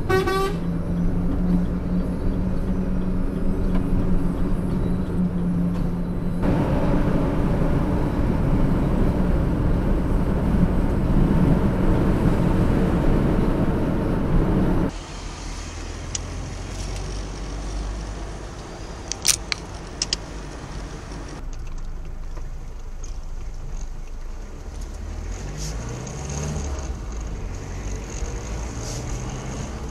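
Engine and road noise inside a moving vehicle's cab, picked up by a dashcam. It starts with a steady engine hum and a louder rumble, then drops abruptly to quieter running with a few sharp clicks. Near the end the engine pitch rises as the vehicle speeds up.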